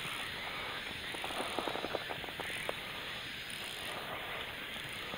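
Soft, steady lapping of rippled water around a float tube while a bass is played on a fly rod, with a run of small clicks and splashes from about one and a half to three seconds in.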